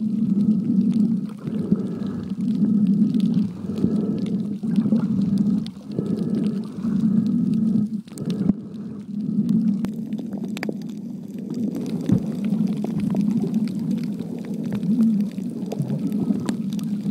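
Muffled underwater rumbling picked up by a submerged camera, swelling and fading about once a second.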